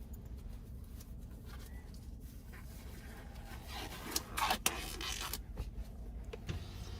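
Rubbing and scraping handling noises with scattered clicks over a low steady rumble, loudest in a rustling stretch a little past the middle.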